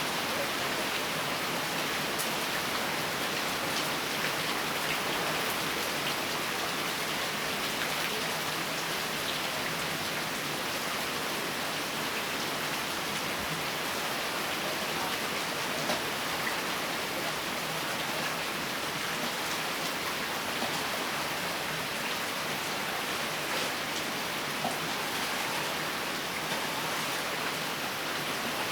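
Steady rain falling: an even hiss with occasional sharp drop ticks.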